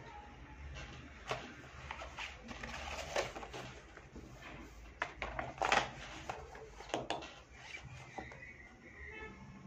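Handling sounds at a writing desk as a bamboo reed calligraphy pen and paper are worked with: a string of sharp clicks and knocks, the loudest about five to six seconds in, with paper moving.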